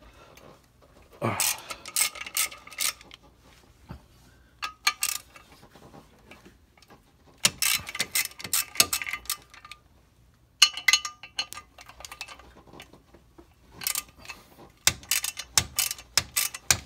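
Ratchet wrench clicking in about five bursts of quick clicks as the 10 mm clutch pressure plate bolts are broken loose one after another, with a grunt of effort about a second in.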